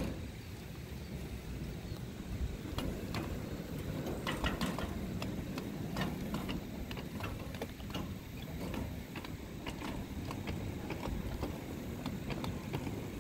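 Ridable-scale model railroad freight cars (hoppers and flatcars) rolling slowly over the track, their wheels running with a low rumble and clicking irregularly over rail joints and switch points. A single sharp knock at the very start.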